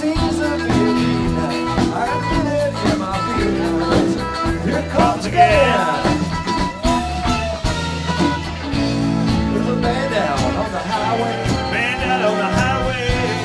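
Live rock band playing an instrumental passage on electric guitars, bass and drums, with a lead line bending up and down in pitch in the middle and again near the end.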